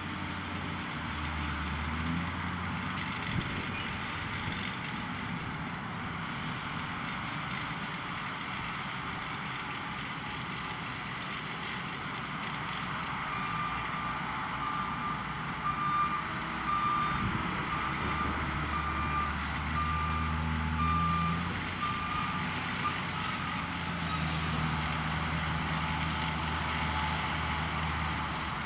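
Tractor and potato harvester engines running steadily, their drone swelling in the second half. A reversing alarm beeps about once a second for several seconds in the middle.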